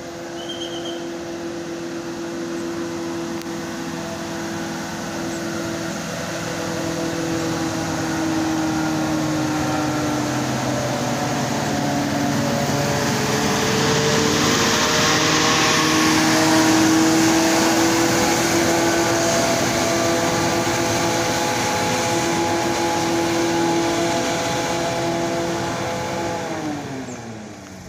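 Tour coach's diesel engine pulling hard up a steep hill, a steady engine note that grows louder as the bus passes close, with a hiss at its loudest. Near the end the engine note slides down in pitch and fades.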